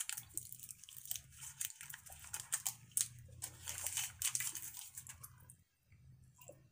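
Paper wrappers of strawberry bubble gum crinkling and tearing as the pieces are unwrapped, mixed with wet chewing and mouth clicks as the gum goes into the mouth. A low hum runs underneath, breaking off briefly a few times.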